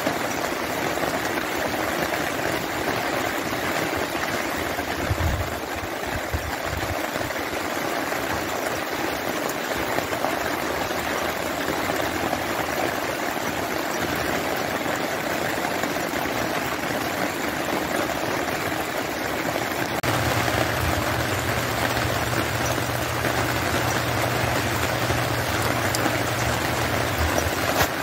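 Rain falling steadily, an even hiss of drops and running water. About two-thirds of the way through, a low, steady engine-like hum joins it and keeps going.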